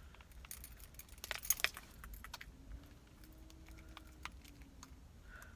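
Car keys and small plastic mushroom keychains jangling and clicking together on a key ring as they are handled, with scattered light clinks that are loudest about a second and a half in.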